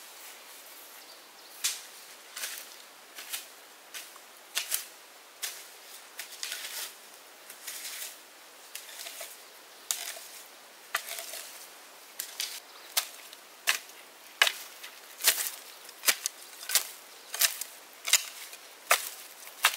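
Wood being chopped with a hand tool: sharp, crisp strikes, irregular at first, settling about halfway through into a steady rhythm of roughly one and a half chops a second and growing louder.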